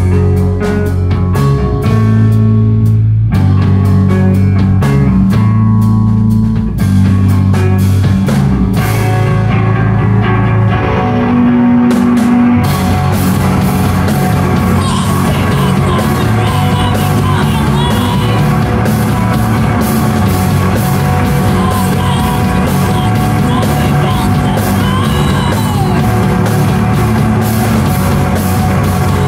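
Live heavy rock band playing loud: a riff of long, low sustained guitar and bass notes over drums. About twelve seconds in, the whole band comes in denser, with a wash of cymbals and vocals over it.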